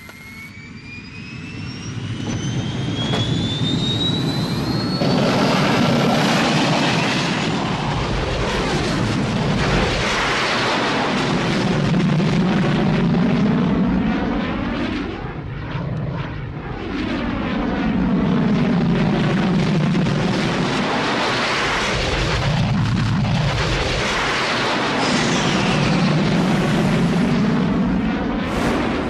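Bede BD-5J microjet's small jet engine spooling up with a rising whine over the first few seconds, then loud jet noise that swells and sweeps as the plane makes repeated low passes.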